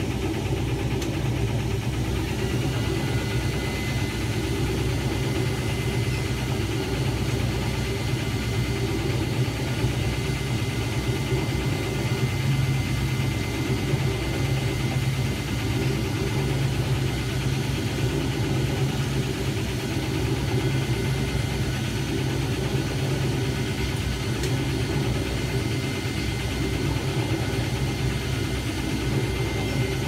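1976 Hoover 620 top-loading washer running steadily through its wash agitation, its motor and transmission humming as it churns a load of laundry in water. A faint steady whine joins about two seconds in.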